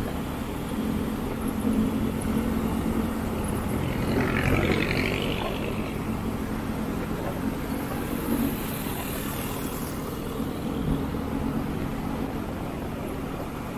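Motorcycle engine running at cruising speed, with road and wind noise and surrounding traffic. About four seconds in, a brief higher whine rises and falls.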